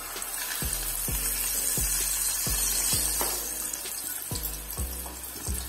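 Hot oil sizzling as a batter-coated bunch of coriander leaves deep-fries, swelling over the first two seconds or so and easing a little toward the end. Background music with a steady beat plays underneath.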